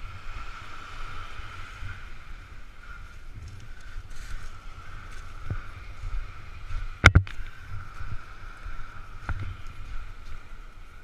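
Wind buffeting an action-camera microphone with a steady low rumble. A few sharp clicks are scattered through it, the loudest a quick double click about seven seconds in.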